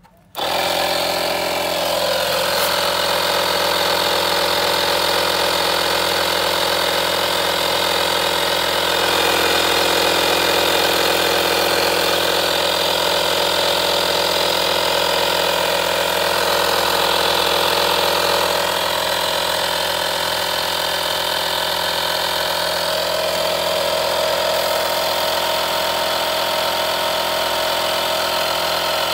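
Vorolly portable tyre inflator's electric air compressor switching on suddenly and running steadily, inflating a car tyre through the hose on the valve.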